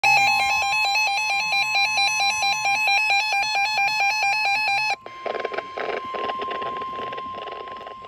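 NOAA weather alert radios sounding an alarm for a Special Marine Warning. A loud electronic warble that switches rapidly between several pitches plays over the steady 1050 Hz Weather Radio warning tone, then cuts off after about five seconds. The warning tone carries on alone with some crackle.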